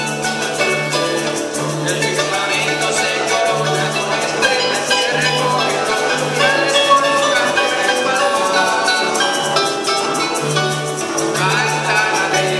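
Live Latin American string-band music: a harp and a small plucked string instrument playing quick melodic runs over a repeating electric bass line, with maracas shaking a steady beat.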